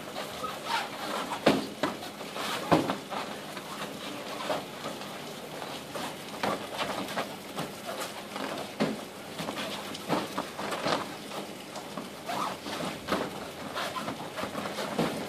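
Taekwondo sparring: irregular slaps and thumps of padded feet stepping and shuffling on foam mats, mixed with strikes landing on padded gear. Two louder hits come about a second and a half and nearly three seconds in.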